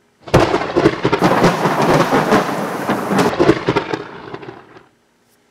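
Thunder sound effect: a crackling lightning clap that rumbles on and fades out near the end.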